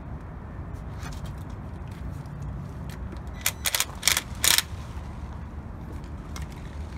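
Tool work in the engine bay of a Lexus LS400 V8: a quick cluster of five or so short, sharp, loud noises a little past the middle, over a low steady rumble.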